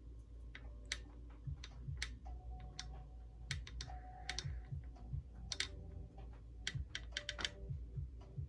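Scattered light clicks and taps at an irregular pace over a steady low hum.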